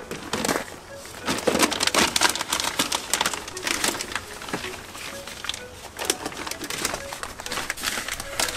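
Crackling and crinkling of a thin plastic waterproof sheet being peeled off the steel inner panel of a van door, loudest in the first few seconds. A dove coos in the background.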